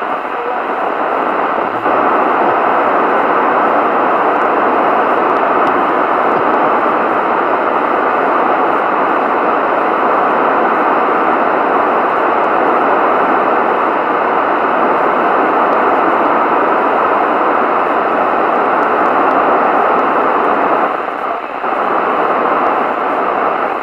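AnyTone AT-5555N CB radio receiving on FM with the squelch open, hissing with band noise and no readable signal: the distant station is too weak to pull out. The hiss steps up about two seconds in and falls back near the end.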